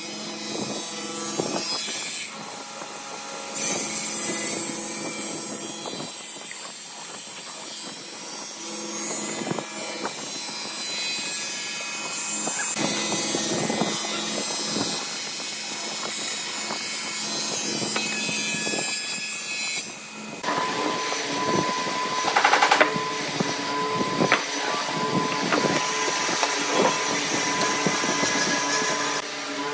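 Table saw running and cutting through a glued-up block of wood strips, a steady motor hum under the rasp of the blade in the wood. About twenty seconds in the sound changes abruptly to a different steady machine hum with a high whine.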